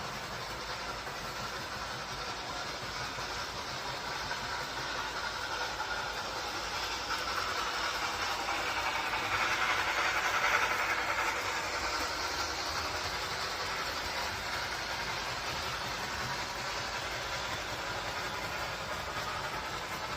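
A train running by, its noise swelling to a peak about halfway through and then fading again.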